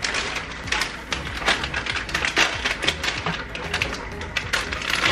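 Frozen butternut squash cubes clattering onto a metal sheet pan as they are shaken out of a plastic bag: many small hard knocks in quick, irregular succession.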